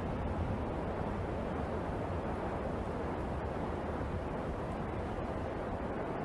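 Steady, even low rumbling noise with no distinct sounds standing out.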